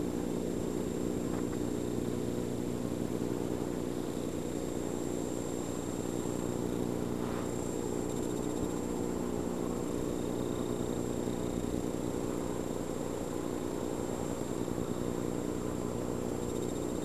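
A steady low hum made of several even tones, with a faint high whine above it.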